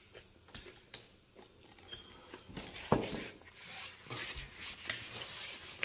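A single knock about three seconds in, then paper towel rustling as a sheet is pulled and torn off the roll, with scattered small clicks.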